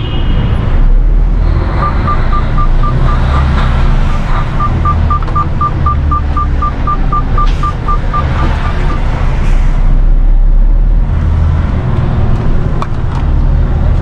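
A Mercedes Actros 510's straight-six diesel engine rumbling inside the cab at low speed while the truck manoeuvres, swelling and easing. From about two to nine seconds in, a quick series of short electronic beeps at one pitch, about four a second.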